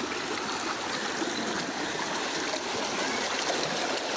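Shallow stream water flowing steadily over rocks.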